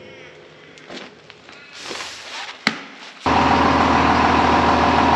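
A few light clicks and knocks, then about three seconds in a loud, steady motor hum at an even pitch starts suddenly.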